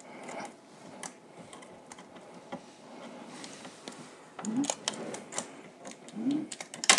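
Shipping tape being peeled off a 3D printer's print head: scattered small clicks and crackles of tape and plastic, with a sharper click near the end.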